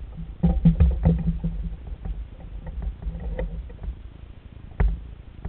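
Knocks and bumps on a plastic kayak hull as gear is handled aboard, over a low rumble. A cluster of knocks comes about half a second to a second and a half in, and a single sharp knock near the end.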